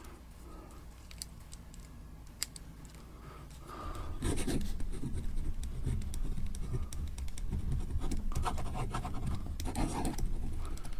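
Small aluminium bolt-action pen scratching as it writes, a steady rubbing scratch that starts about four seconds in, after a few faint clicks.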